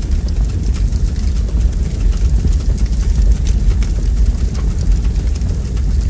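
Wood log fire burning in a fireplace: a steady low rumble of flames with frequent small crackles and pops from the burning wood.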